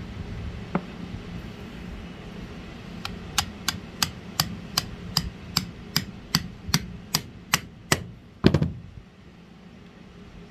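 About fourteen evenly spaced sharp taps, roughly two and a half a second, then one heavier knock, made while a rocker box is being reassembled, over a steady low hum.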